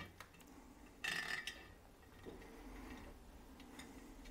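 Faint metallic clicks of steel spokes knocking against a motorcycle wheel's chrome rim and hub as a spoke is threaded into place during lacing: a short clatter about a second in, then a few light ticks near the end.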